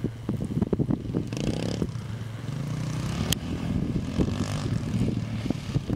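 Triton 450 SuperMoto quad's engine running hard off-road, its revs rising and falling as the throttle is worked, with a sharp click a little past halfway.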